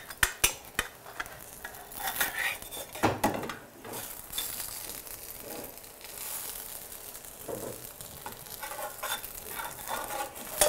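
Metal spatula scraping and clicking against a frying pan as a pancake is worked loose and turned, over a steady sizzle of frying. There are a few sharp clicks in the first second and a louder knock about three seconds in.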